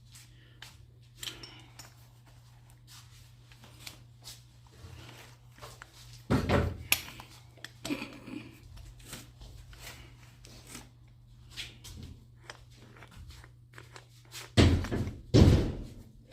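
Scattered light knocks and clicks of tools and parts being handled during repair work, with a heavy thud about six and a half seconds in and two more near the end, over a faint steady low hum.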